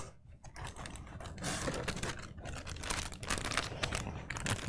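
Packaging being handled: a plastic bag around a server bezel crinkling and foam packing inserts rubbing against the cardboard box, a dense run of fast, irregular crackles and rustles that builds after the first half-second.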